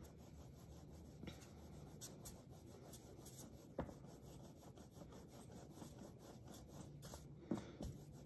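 Faint soft rubbing of palms rolling a coil of clay back and forth on a board, with a few light ticks.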